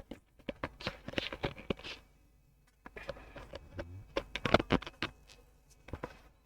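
Irregular clicks, taps and light scrapes of small parts and hand tools being handled on a repair bench, in two busy spells with a short lull between.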